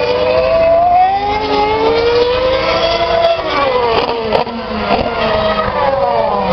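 2012 Formula One cars' 2.4-litre V8 engines at high revs, pitch climbing in steps as they accelerate up through the gears. Engine notes overlap, and one swoops down in pitch as a car passes close about four seconds in.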